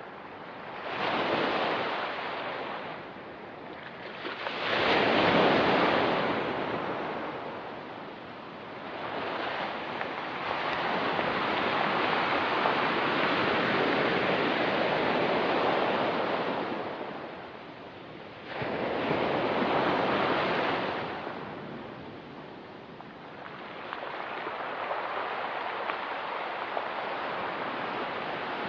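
Ocean surf breaking and washing over a rocky, pebbly shore, the sound swelling and falling back every few seconds, with one longer wash in the middle.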